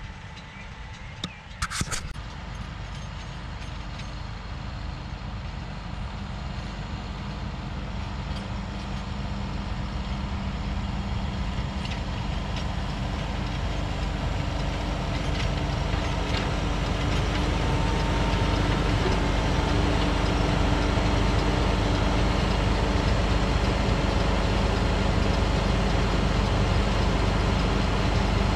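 Fendt tractor's engine running under load as it pulls a round baler along a hay windrow, growing steadily louder as it comes closer. There is a brief sharp clatter about two seconds in.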